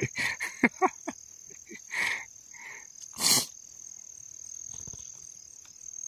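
Crickets chirring in a steady high-pitched drone, with a few short voice sounds in the first second and a brief noise about three seconds in.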